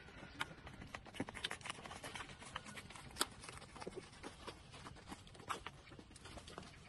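Puppies suckling at their mother's teats: irregular wet smacking and clicking, several a second, with one sharper click about three seconds in.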